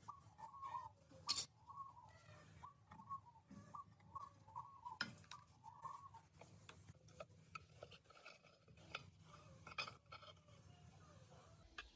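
Faint, scattered light clicks and metallic taps, with faint bird chirping in the background during the first half.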